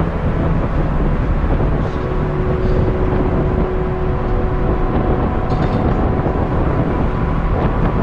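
Strong wind buffeting the microphone high on an open steel lattice tower: a steady, loud low rumble.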